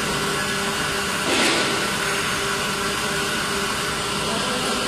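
Injection moulding machine running a test cycle on a six-cavity PET preform mould: a steady mechanical hum with a faint steady whine, and a brief hiss about a second and a half in.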